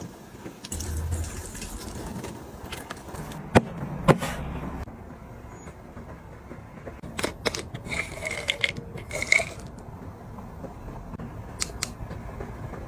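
Handling sounds of a plastic supplement bottle being picked up and turned in the hand: scattered taps and clicks, the two sharpest about three and a half and four seconds in, and a cluster of small clicks and squeaks of plastic near the end.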